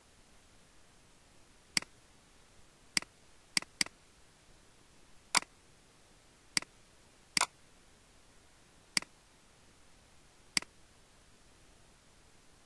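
Computer mouse button clicking, about nine single sharp clicks at irregular intervals, including a quick double-click a few seconds in.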